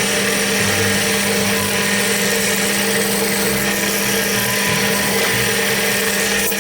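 Electric motor of a homemade bench drill running at a steady speed with a constant hum and a loud whirring hiss.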